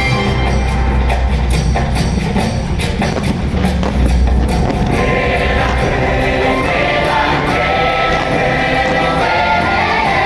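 Fireworks show soundtrack with a choir singing, played loud, over repeated firework bursts and crackle that are heaviest in the first half, with deep booms near the start and about four seconds in.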